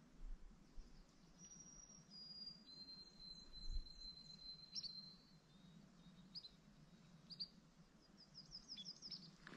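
Faint songbird calls: a few thin, high whistled notes, one held for over two seconds, and scattered short chirps, ending in a quick run of down-slurred notes.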